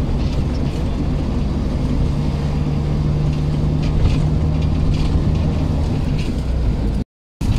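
Road vehicle driving, heard from inside the cabin: steady low engine and road rumble with a held hum. The sound drops out completely for a moment near the end.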